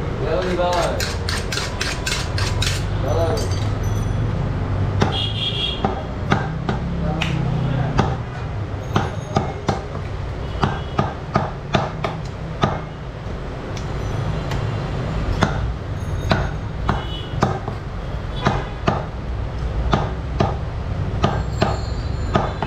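Heavy butcher's knife chopping beef on a round wooden chopping block: a long series of sharp chops, a quick run in the first few seconds, then about two a second in the middle, and scattered ones later.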